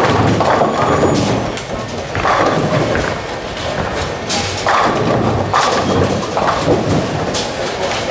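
Busy tenpin bowling alley with play on many lanes: bowling balls thudding onto the lanes and rolling with a low rumble, and several sharp crashes of pins being struck.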